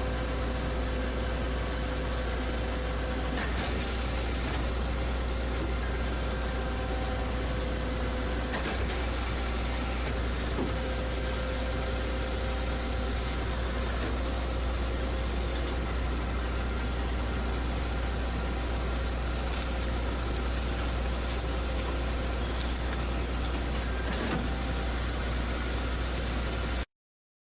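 Heavy machinery running steadily with a deep, constant hum and a few faint knocks, then cutting off abruptly near the end.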